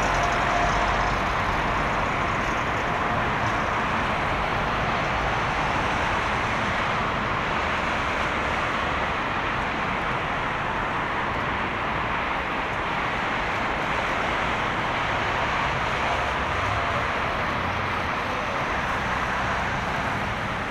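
Boeing 767-300F freighter's turbofan engines running at low power as the aircraft rolls out and taxis after landing: a steady jet rush, with a thin whine that stops about a second in.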